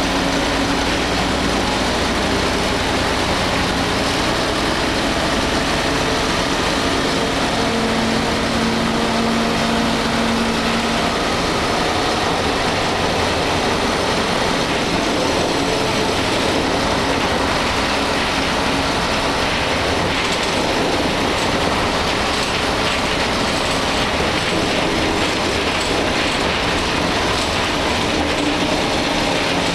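Inside a 1988 Ikarus 280.03 articulated bus under way: the diesel engine runs under a steady din of road noise, and the body and fittings rattle.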